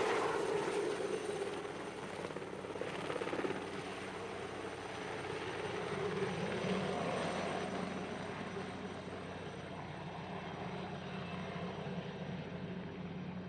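Jet noise from a single-engine Saab JAS 39 Gripen fighter in flight: a steady rushing rumble. It is loudest at the start, then fades and grows duller in the second half.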